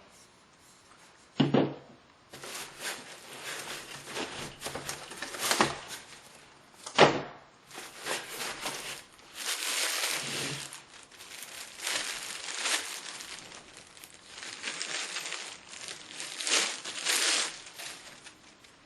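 Plastic packaging crinkling and rustling as a tool is unwrapped, in irregular bursts. Two sharp knocks, about a second and a half in and about seven seconds in, are the tools being set down while handled.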